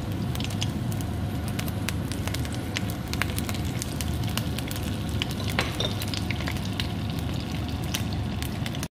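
Whole red and green chillies shallow-frying in hot oil in a non-stick pan: a steady sizzle with frequent sharp spits and pops.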